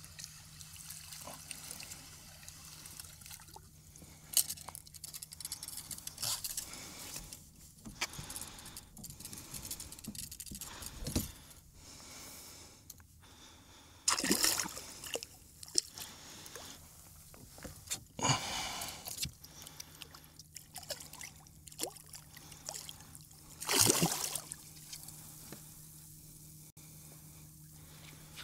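Water splashing and trickling close to a kayak as a tired hooked shark is brought in alongside, with several louder splashes at irregular moments, the biggest about halfway through and again near the end.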